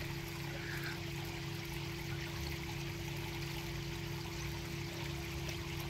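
Water running and trickling steadily from a koi pond's shower filter, falling through its trays of media into the pond, with a steady low hum underneath.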